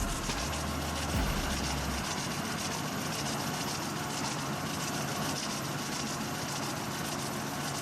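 Heavy machine's engine running steadily, with an even rush of mechanical noise and a low rumble that drops away about two seconds in.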